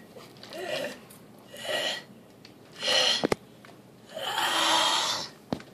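A person's breathy vocal sounds in four short bursts, the last the longest, with two sharp clicks, one about three seconds in and one near the end.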